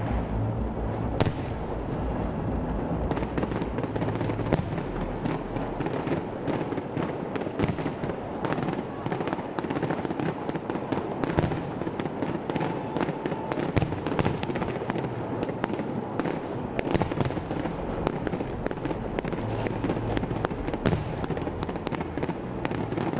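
Aerial fireworks display going off in a dense, continuous barrage: many sharp bangs and crackles at irregular intervals over a steady noise of further bursts.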